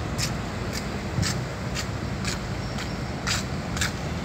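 Footsteps at an even walking pace, about two a second, over a steady low rumble of road traffic.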